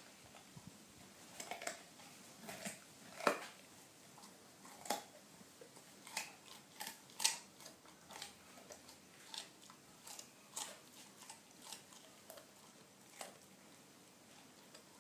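Dog chewing a carrot: a run of irregular crisp crunches, a few much louder than the rest, thinning out near the end.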